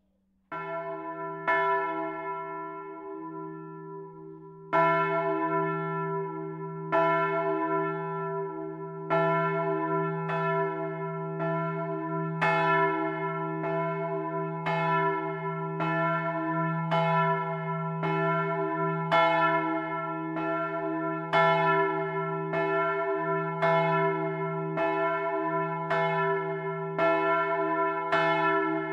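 A large bronze church bell, one of the three bells cast in 1951 by the Otto foundry of Hemelingen, starts up on its electric ringing drive. The clapper's first strikes come a few seconds apart as the swing builds, then quicken to a steady stroke about once a second. The deep hum rings on between the strokes.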